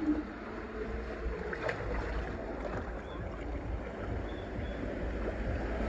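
Water rushing down an enclosed tube water slide with a rider sliding through it: a steady, even noise of running and splashing water.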